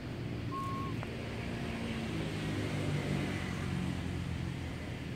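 A steady low engine hum, as of a motor vehicle running, with one brief high squeak about half a second in.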